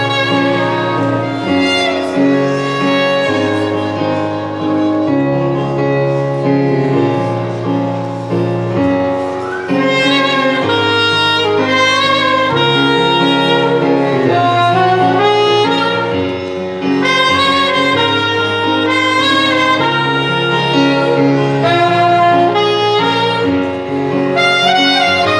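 Instrumental music: a melody line over held bass notes that change every second or two, with no voice.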